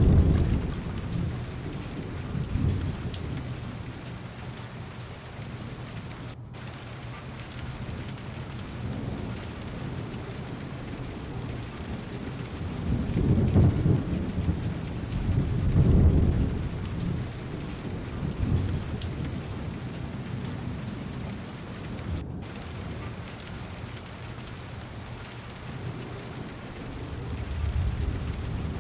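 Heavy rain falling steadily on a car window, an even hiss, with low rolls of thunder at the start, twice about halfway through, and building again near the end. The rain cuts out for an instant twice.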